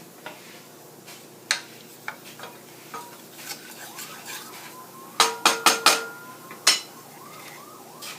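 Metal spoon clinking and scraping against a pan while spices are mixed into oil. There are scattered light taps, then four sharp ringing clinks in quick succession a little past five seconds, and one more about a second later.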